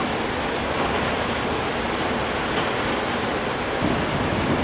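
Flood water pouring through the open spillway gates of a dam: a steady rushing noise.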